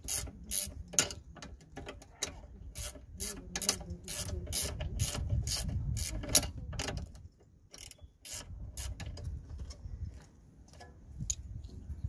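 A ratchet clicking in quick repeated strokes, about three a second, as the top brake caliper bolt is wound out. The clicks thin out and grow quieter after about seven seconds.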